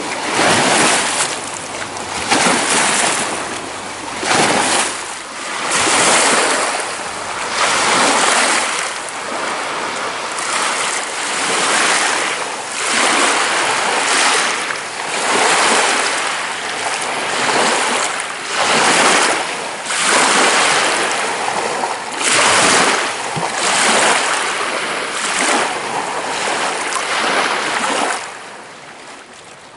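Choppy lake waves rushing and washing in, swelling and falling back every second or two.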